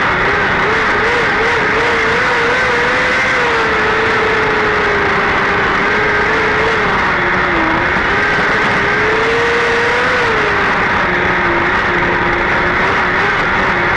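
Small dirt-track sprint car's engine running hard at racing speed, heard on board, its pitch rising and falling with the throttle and dipping about eight seconds in and again near eleven.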